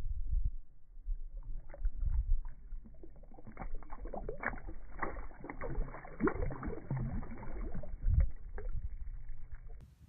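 Shallow seawater splashing and sloshing around a hand as a small spotted sea bass is released and kicks away. Low thumps early on, then a busy crackle of small splashes and drips through the middle.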